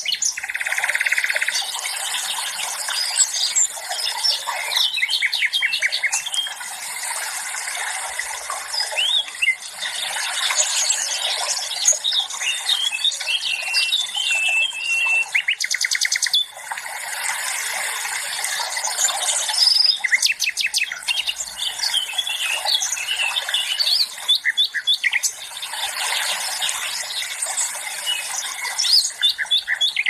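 A chorus of songbirds singing and chirping over a steady hiss, with several quick rattling trills.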